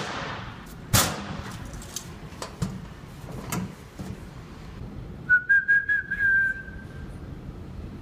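Belongings being put into a metal gym locker: scattered knocks and clatter, then a cluster of sharp clicks about five seconds in, joined by a single high, steady whistle-like squeak lasting just over a second.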